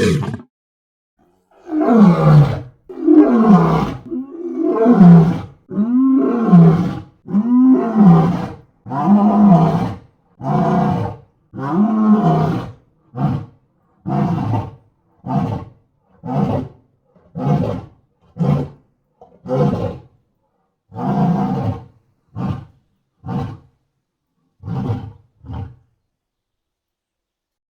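A series of about twenty Tyrannosaurus rex roar sound effects, each cut off cleanly with silence between. The first calls last about a second and rise then fall in pitch; from about halfway on they become shorter, around half a second each.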